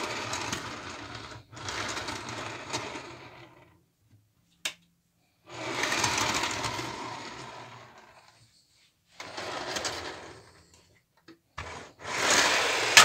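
Model railway coach rolled by hand along Peco bullhead 00 gauge track on a wooden baseboard, its wheels rattling over the newly laid rails. There are five rolling runs, each fading as the coach slows, with two sharp clicks between them.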